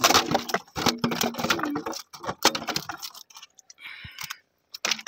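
Clattering on the woven bamboo floor of a coracle as fishing gear and line are handled: a quick run of light clicks and rattles for about three seconds, then a few scattered knocks and a brief rustle.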